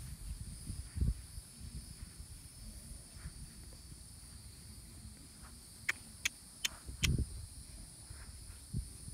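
Steady high chirring of an insect chorus, with a few low thumps and a quick run of four sharp clicks about six to seven seconds in.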